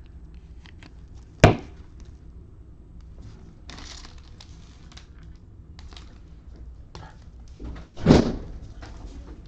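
Two sharp thuds, one about a second and a half in and a louder one near the end with a softer knock just before it, over faint clicks and rustling from handling.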